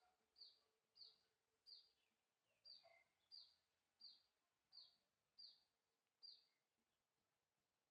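Faint bird calls: a string of about nine short, high, falling chirps, evenly spaced at well over one a second, stopping a little after six seconds in.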